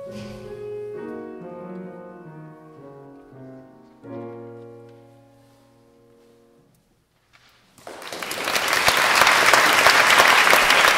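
Grand piano playing the closing chords of a song, the last chord about four seconds in ringing away to near silence. About eight seconds in, an audience breaks into applause that builds quickly and is the loudest sound.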